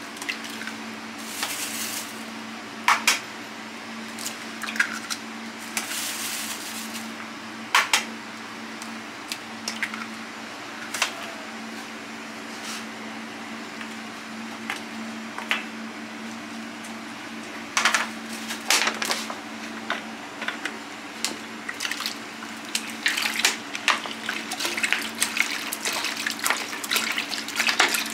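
Eggs are cracked on the rim of a stainless steel pan with sharp separate taps. In the later part, liquid is poured from a plastic bottle and splashes and fizzes into the pan. A steady low hum runs underneath.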